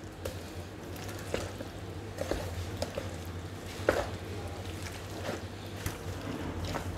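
Spoon stirring chicken pieces and vegetables through thick, wet batter in a plastic bowl: soft squelching with a few light clicks, over a low steady hum.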